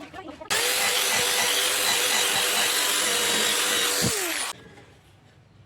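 Homemade scroll saw switched on and running steadily for about four seconds, then switched off, its motor pitch falling as it winds down.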